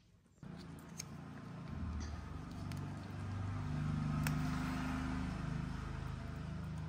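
Domestic cat purring, a steady low rumble with a fast pulse, while it licks a squeeze-tube treat. A few sharp licking smacks come through over it.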